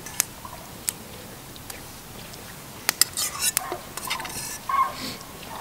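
Metal spoon clinking and scraping in a metal camping pot while soup is eaten: scattered sharp clicks, busiest between about three and five seconds in.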